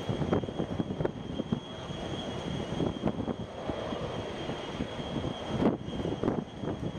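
Boeing 737-800's CFM56 jet engines at taxi power, a distant steady jet noise with a thin high whine over an uneven rumbling crackle.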